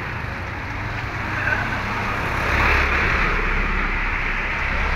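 Road traffic: a vehicle engine running steadily with a low hum and tyre and road hiss, swelling to its loudest about two and a half seconds in, as a vehicle passes close by.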